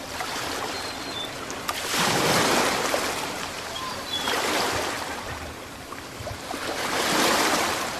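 Ocean waves surging and washing, swelling twice to a peak about five seconds apart, with a few faint high chirps over the surf.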